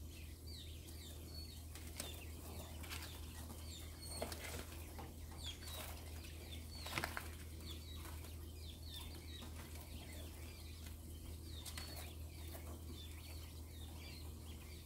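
White mini quails peeping softly over and over with short high chirps, along with scattered clicks and rustles of pecking and scratching in their bedding; the loudest scuffle comes about seven seconds in.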